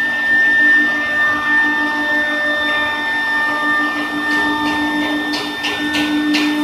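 Spindle motors of the W1325VD3 three-spindle CNC wood router running with a steady high whine, with shorter tones coming and going as the machine moves. From about four seconds in, a run of short rasping strokes, roughly three a second, joins it.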